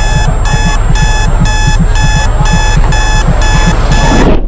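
Electronic alarm clock beeping rapidly, about three beeps a second over a low pulsing hum, loud, then cut off suddenly near the end.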